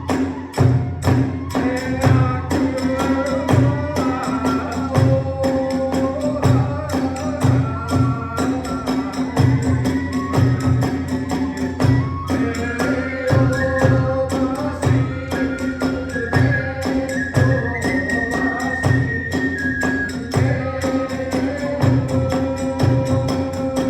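Kagura hayashi ensemble playing: a bamboo flute melody over a steady big-drum beat and the constant clashing of small brass hand cymbals.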